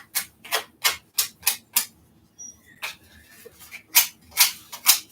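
Sandpaper rubbed in short downward strokes along the edge of a paper-covered light switch cover, scraping off the excess scrapbook paper: about six quick strokes, a pause of about two seconds, then three more.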